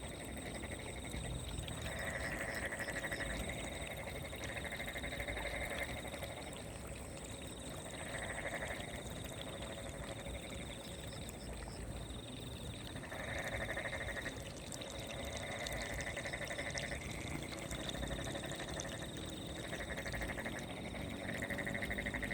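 Frogs calling at night in repeated trilling bouts of one to three seconds, some overlapping, over a faint steady high-pitched tone.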